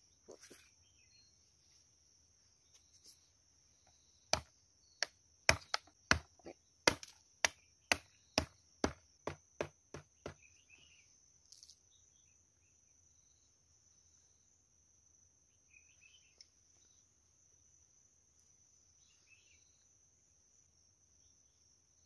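A machete chopping on wood: about a dozen sharp, loud chops, roughly two a second, from about four seconds in until about ten seconds in. Under them, insects keep up a steady high-pitched drone.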